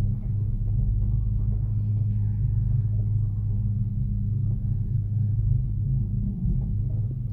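Steady low rumble and hum inside a Firstbahn gondola cabin as it travels along the cable.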